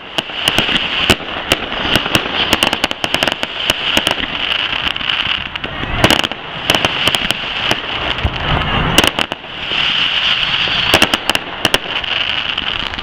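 Aerial fireworks bursting: a rapid, irregular string of sharp bangs and crackles, with a louder bang about six seconds in.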